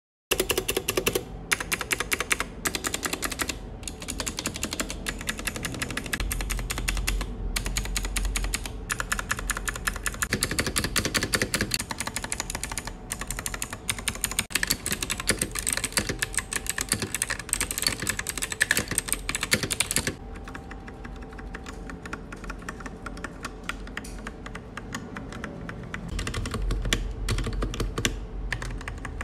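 Milyy Pudding MK25 mechanical keyboard being typed on quickly: a dense stream of key clicks broken by a few short pauses. About twenty seconds in, the typing turns softer and quieter.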